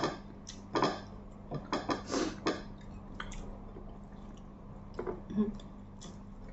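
Eating at a table with the hands: a scattering of short wet smacks and clicks from chewing and lips, with light taps of fingers and food against plates, over a faint steady hum.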